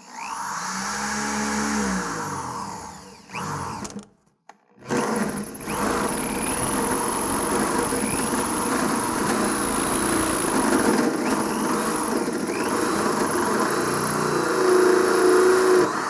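Cordless drill driving a hole saw through the sheet-steel firewall, cutting a one-inch hole. The cutting runs, breaks off for under a second about four seconds in, then runs steadily to the end.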